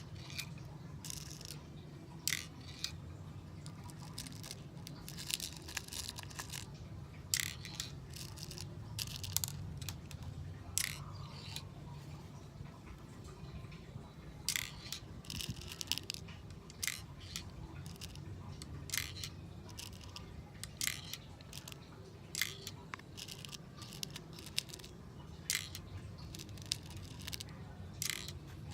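Steel BBs being loaded one at a time into an airsoft gun's magazine through its loading hole: irregular small metallic clicks, roughly one or two a second, over a low steady hum.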